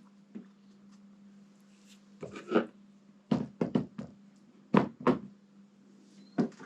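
A series of irregular sharp knocks and clacks, with the loudest about halfway through, from handling hard parts or tools during hands-on workshop work. A steady low hum runs underneath.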